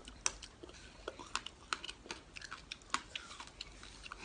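Close-up chewing of crunchy food: sharp, irregular crunches and mouth clicks, several a second.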